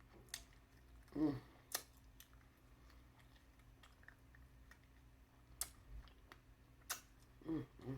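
Eating seafood close to the microphone: faint, with a handful of sharp clicks and cracks spread out, and a brief low hum about a second in and again near the end.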